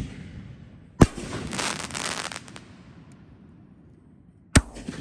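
Happy Family 4-inch Magnum 60-gram canister firework shells going off. A sharp bang about a second in is followed by about a second of crackling hiss, and a second sharp bang comes near the end.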